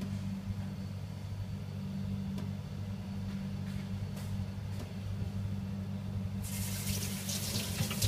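A steady low hum throughout, with a few faint clicks; about six and a half seconds in, a tap is turned on and water runs steadily.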